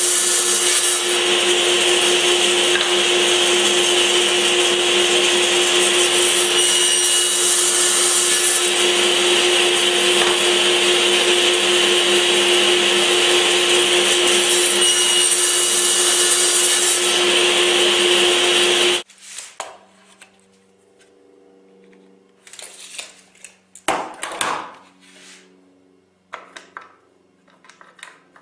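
An electric woodworking power tool runs steadily with a constant whine, then shuts off suddenly about two-thirds of the way through. A few knocks and clatters follow.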